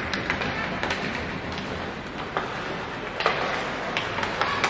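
Game noise in a sports arena: a steady hiss with scattered sharp clacks and knocks, about a dozen in all.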